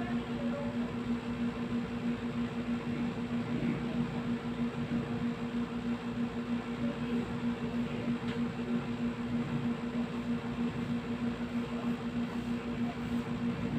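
Split-type air conditioner's outdoor unit running with a steady hum while its low refrigerant charge is being topped up through a manifold gauge.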